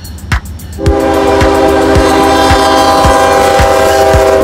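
Norfolk Southern freight locomotive's multi-chime air horn sounding one long, loud blast from about a second in, as the train passes through a grade crossing. Under it a crossing bell dings steadily, nearly two strikes a second.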